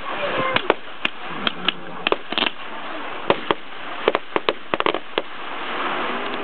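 Aerial fireworks going off in an irregular series of sharp pops and bangs, bunched around two seconds and five seconds in.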